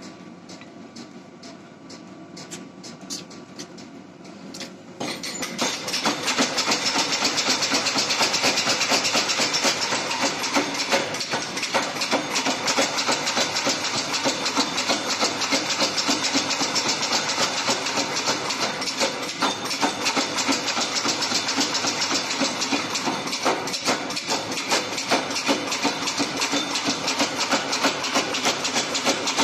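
Power hammer beating a glowing Damascus steel billet with fast, steady blows, with a hiss under the strikes. The blows are lighter for the first five seconds, then become loud and continuous.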